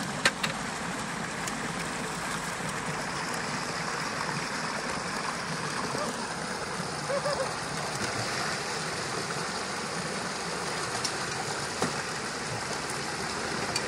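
Creek water pouring through a gap in a small stick-and-mud dam: a steady rushing. A single sharp knock comes just after the start.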